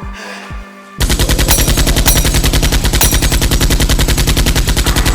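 Rapid automatic gunfire, a long unbroken burst of shots at about a dozen a second, starting about a second in after a few low thumps.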